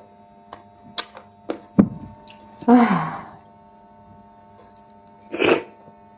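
Mouth sounds of eating okra soup and swallow: a few short wet clicks and smacks in the first two seconds, a short hummed vocal sound with falling pitch about three seconds in, and a quick breathy sniff or slurp near the end, over a steady electrical hum.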